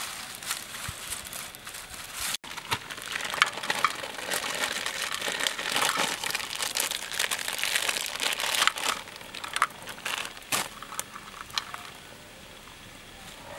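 Plastic bag crinkling and rustling as it is handled and emptied into a pan, with many quick crackles; it dies down about three-quarters of the way through.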